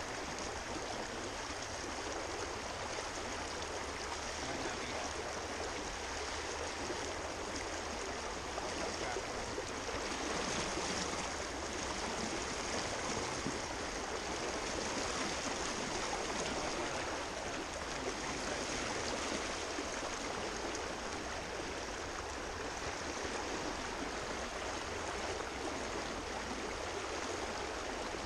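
Steady rush of a fast, shallow river current running over riffles and around wading legs.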